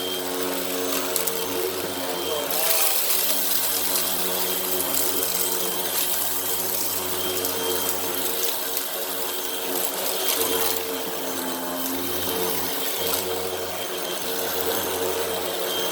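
Hoover WindTunnel High Capacity Pet upright vacuum running steadily, its motor hum under a hiss of rushing air, with cat litter and grit crackling as it is sucked up.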